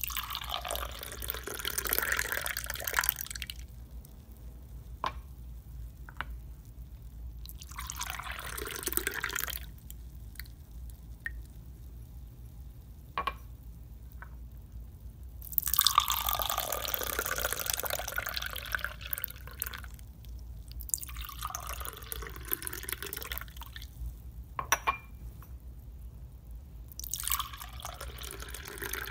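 Liquid pouring into a glass in five separate spells of a few seconds each, with single drips in the gaps between them.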